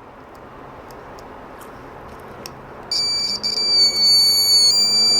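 Piezo buzzer salvaged from a microwave oven, wired to a multimeter's continuity tester, sounding a loud, steady, high-pitched tone. A few faint clicks come first, then the tone starts about three seconds in, sputters briefly as the contact settles, then holds steady: the buzzer works.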